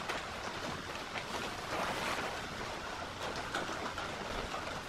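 A sheet of adhesive wood-grain vinyl film rustling and crinkling as it is handled and smoothed by hand: a steady rustling hiss with light crackles scattered through it.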